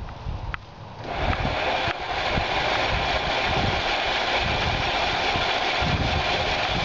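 Electric drive motor of a car's EV conversion, run straight off one 12-volt battery, starting up about a second in and then running steadily, turning the transmission in first gear and the raised wheel: a steady whirring hiss of motor and drivetrain with low uneven rumbling beneath.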